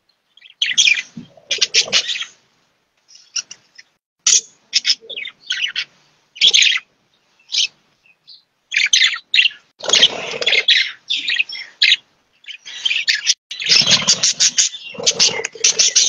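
A flock of budgerigars chattering: irregular strings of short, high chirps, coming thicker and louder in the second half.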